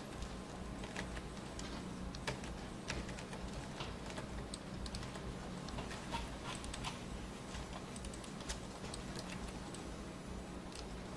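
Irregular clicking of a computer mouse and keyboard while working at a computer, over a low steady hum.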